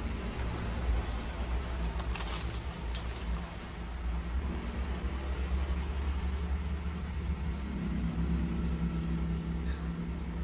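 A steady low machine hum runs throughout, with a short crinkle of a clear plastic package bag being opened about two seconds in.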